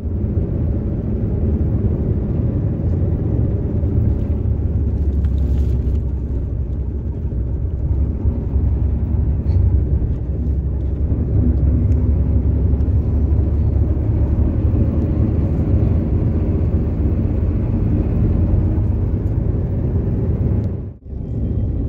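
Steady low rumble of a moving bus: engine and road noise, with a brief break near the end.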